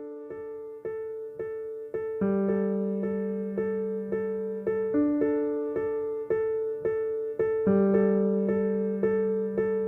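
OnePlus OxygenOS 14 ringtone playing: a looping electric-piano melody of evenly repeated notes, just under two a second, over held bass notes that change every few seconds. It fills out and grows a little louder about two seconds in.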